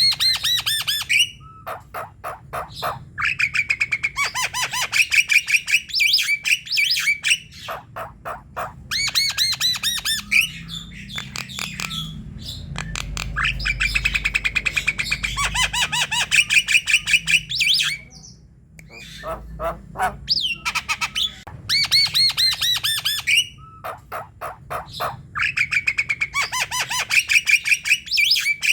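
Javan myna (jalak kebo) calling vigorously: bouts of rapid, harsh chattering and squawking notes, each lasting a few seconds, repeated with short pauses between them.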